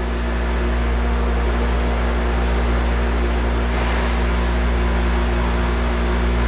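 Steady mechanical hum with a hiss of air noise, even and unchanging, like a fan or electric motor running.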